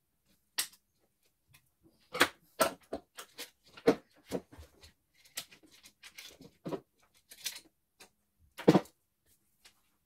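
Irregular clicks, snips and knocks of hand tools and the plastic and metal parts of a CNY E900 embroidery machine being handled during disassembly. The loudest knocks come about two seconds in, about four seconds in, and near the end.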